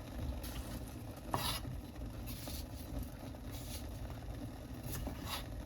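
Pot of water heating on a stove at high heat: a steady low rumble, with several short, soft noises scattered through it.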